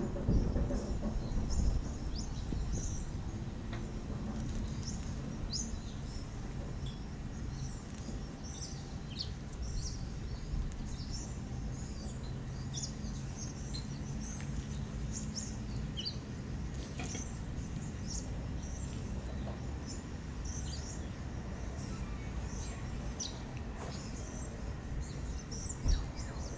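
Small birds chirping, many short high calls scattered throughout, over a steady low background rumble. A brief louder sound comes near the end.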